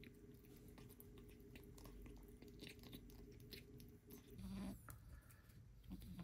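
A kitten eating soft food from a syringe: faint wet smacking and chewing clicks. A short louder sound comes about four and a half seconds in.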